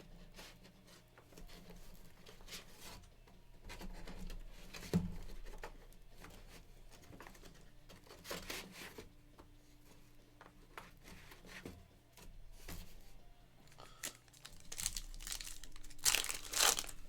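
Trading card pack wrappers crinkling and tearing as packs are opened and the cards handled, in scattered rustles with a louder tearing burst near the end.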